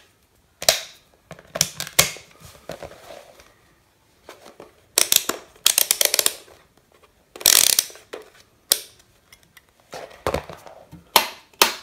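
Scattered plastic clicks and knocks from a plug being pushed into a power strip and a digital multimeter being handled, with a quick run of rapid ratchet-like clicks about five seconds in from its rotary selector dial being turned.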